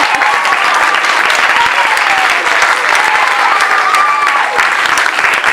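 Audience applauding loudly and steadily, a dense patter of many hands clapping, with a few voices calling out over it.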